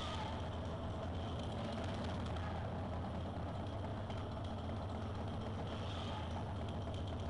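Steady low rumble of a roller coaster train running on its track, heard from on board.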